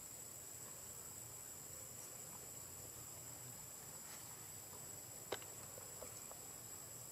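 Faint, steady background hiss with a thin, constant high-pitched tone, broken by a few soft clicks and one sharper click about five seconds in.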